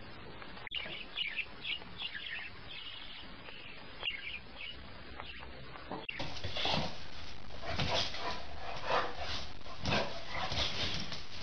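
Small pet bird chirping softly. About six seconds in, the sound cuts to a dog barking about once a second, louder than the chirps.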